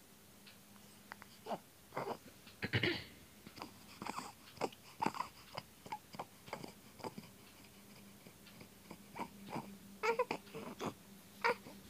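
Young infant making short fussing sounds and grunts in brief bursts, mixed with rustling and handling clicks of clothing and the phone.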